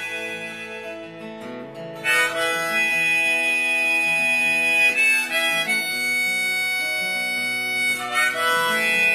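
Harmonica in a neck rack and an acoustic guitar playing an instrumental break. The guitar plays alone at first, then about two seconds in the harmonica comes in loudly with long held notes over it.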